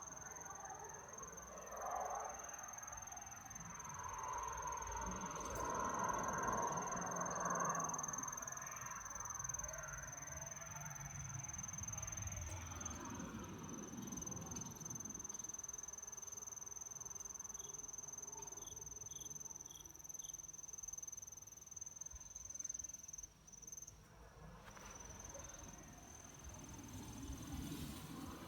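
Steady high-pitched insect trill, unbroken throughout, with irregular rustling noise underneath during the first half and four short chirps about two-thirds of the way through.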